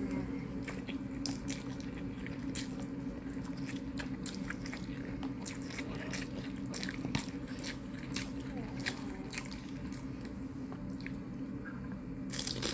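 Close-up chewing of spicy instant noodles and pan-fried dumplings: many small wet mouth clicks and smacks over a steady low hum, with a short louder rush near the end.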